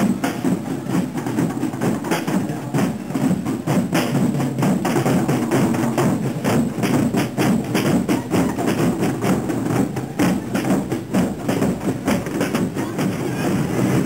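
Marching drum band playing snare drums together in a fast, steady rhythm of sharp strikes.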